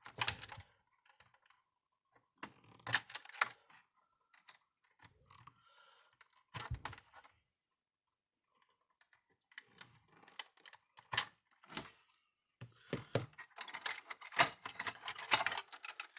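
Irregular clicks, taps and light rattles of hands working on a plastic-cased electric fence energizer while removing its burnt circuit board. The sound comes in short clusters with quiet gaps between them and gets busier in the last few seconds.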